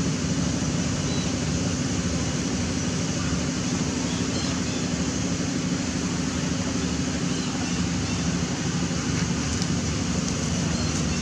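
Steady rushing outdoor background noise with a low, steady hum underneath; no distinct events stand out.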